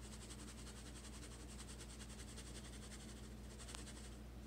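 Ground pepper shaken from a shaker onto raw fish steaks in a steel bowl: faint, rapid, evenly spaced ticking that stops near the end, over a low steady hum.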